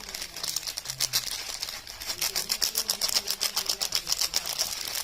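Dense run of crisp, rapid clicking and crackling, several clicks a second, from soap bars and their packaging being handled.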